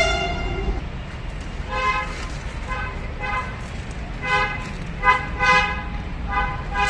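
Vehicle horns honking in traffic: one longer toot at the start, then a string of short toots, several in quick pairs, over a low traffic rumble.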